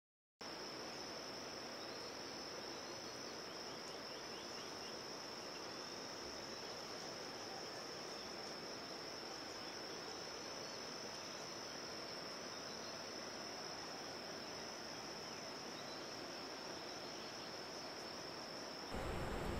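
Steady, high-pitched trilling of crickets in an unbroken chorus. The chorus starts about half a second in, and the background changes abruptly to a louder ambience just before the end.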